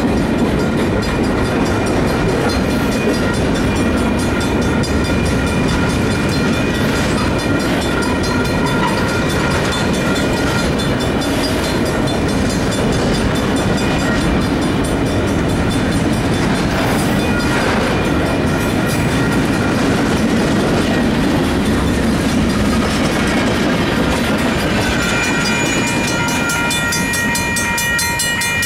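Union Pacific freight train of autorack cars rolling past close by: a steady, loud din of steel wheels on the rails with clatter from the cars. Near the end a grade-crossing bell rings over it.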